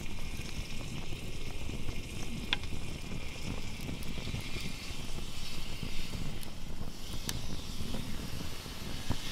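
Wood fire of split logs burning in a fire pit: a steady hiss and crackle, with a sharp pop about two and a half seconds in and another near seven seconds.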